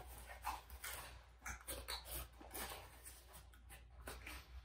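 Faint rustling and light clicks of packaging and a small handheld remote being handled, over a low steady hum.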